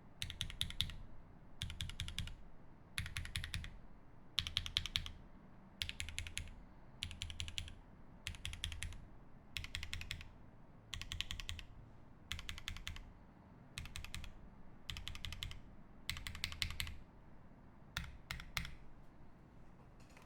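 Mechanical keyboard with an aluminium plate, lubed OP Black switches and GMK keycaps being typed on in short bursts of fast keystrokes with brief pauses between them. The typing stops near the end.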